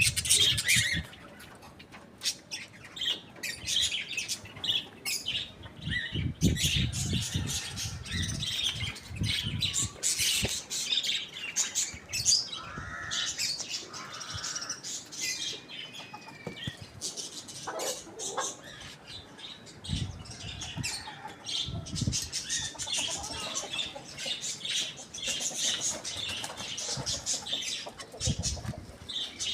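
Chickens feeding: a busy, irregular run of short clicks and rustles, with chirping calls and an occasional squawk.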